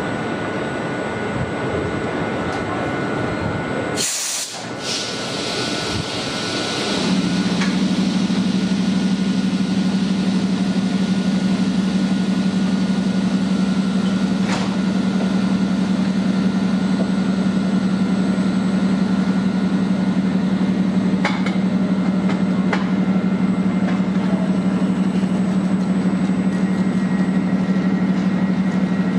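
FS E.656 electric locomotive standing coupled to a passenger coach: a short loud blast of air hiss about four seconds in as the brake hoses are worked, then a steady low hum from the locomotive's machinery starts and runs on.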